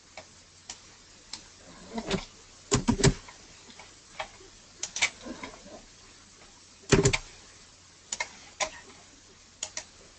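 Computer mouse and keyboard clicks: scattered, irregular single clicks, with a few louder clustered clicks that carry a dull thud about three seconds in and again around seven seconds.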